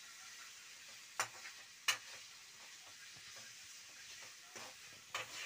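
Chopped onion, tomato and green chilli frying in oil in a steel kadai with a faint steady sizzle, while a metal spatula stirs and scrapes the pan, knocking sharply against the steel a few times.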